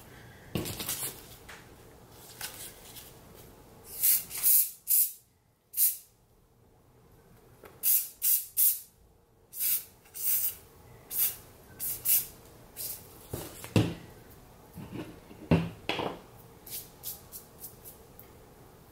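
Aerosol fiber hold spray from the Dr. Fill-in hair enhancement kit, sprayed in many short hissing bursts onto the hairline. Two sharper knocks come in the second half.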